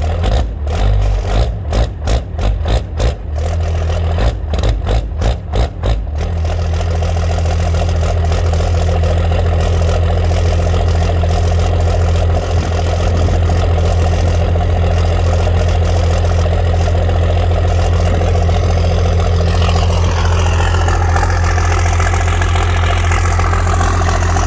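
Cummins 12-valve inline-six diesel just after a cold start with the injection timing advanced to 32°, running rough with uneven pulses for about six seconds and then settling into a steady idle.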